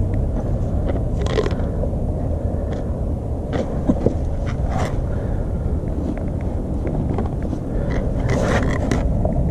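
Flat-head screwdriver poking and scraping in a narrow gap between a deck board and concrete, with scattered scrapes and clicks over a steady low rumble.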